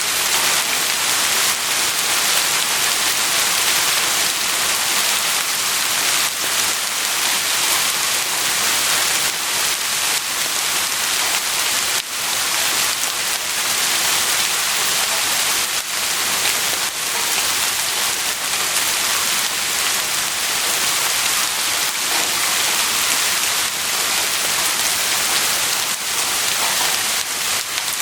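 Heavy rain falling steadily, a dense even hiss with fine drop patter.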